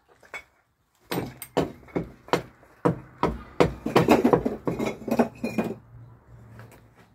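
Irregular run of sharp clinks and knocks of hard objects striking one another, starting about a second in and thinning out near the end.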